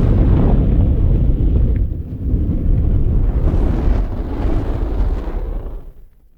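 Fire burning with a deep, rumbling noise, then fading out near the end.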